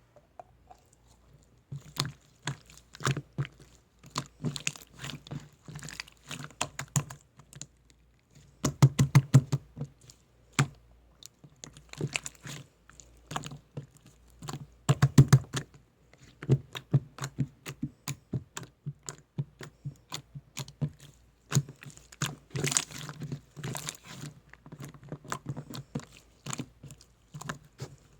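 Quick sharp clicks and taps in irregular runs of a second or two, broken by short pauses, like typing on a keyboard.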